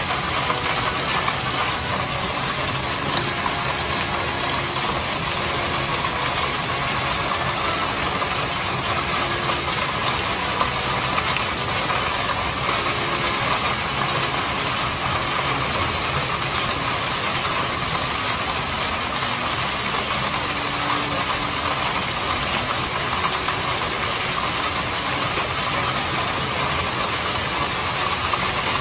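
Heavy rain pouring down in a steady, unbroken downpour.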